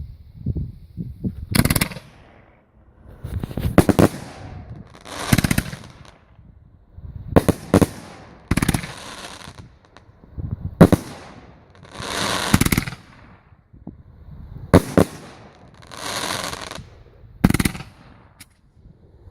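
Fireworks going off: about a dozen sharp bangs at irregular intervals of one to two seconds. Each one trails off over about a second.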